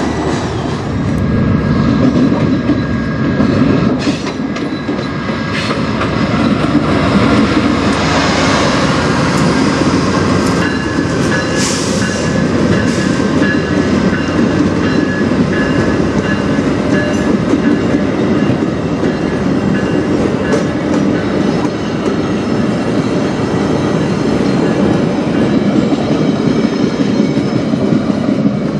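Freight train cars rolling past on the rails: a steady rumble with wheels clicking over rail joints, and a thin high squeal from the wheels coming and going through the middle.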